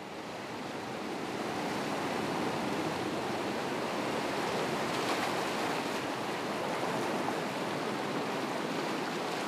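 Ocean surf breaking and washing over a rocky shoreline, a steady rush of waves that fades in over the first couple of seconds.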